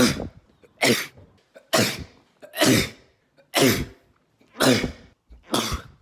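One man's sneezes, seven of them, cut back to back at about one a second. Each is a sudden sharp burst of breath that dies away quickly.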